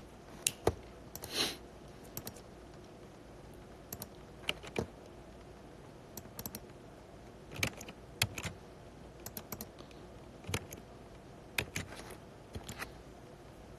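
Irregular clicks of typing on a computer keyboard, single keystrokes and short runs spread through a quiet room.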